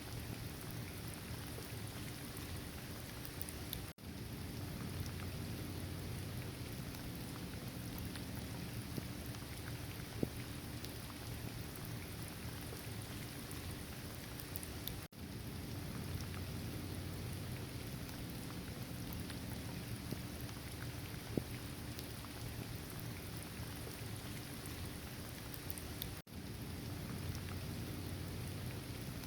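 Steady rain falling, with scattered sharper drop ticks and a low rumble under it. The sound dips out briefly three times, about every eleven seconds.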